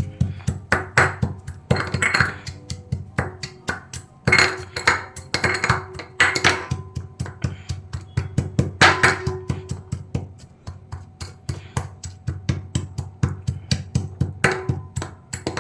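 A pestle pounding charred black cardamom pods in a small bowl, crushing them to powder: rapid, uneven strokes several times a second, some leaving a short ringing tone.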